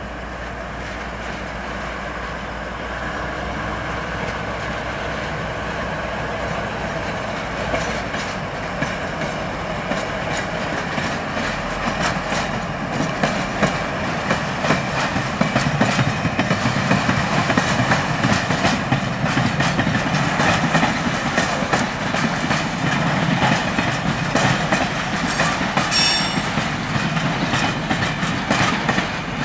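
Two ex-DB V211 diesel-hydraulic locomotives running in tandem, their engines growing steadily louder as they come up and pass close by, hauling a train of loaded flat wagons. From about eight seconds in, the wheels clatter rapidly over the rail joints, a rhythmic clickety-clack over a low rumble that is loudest through the second half.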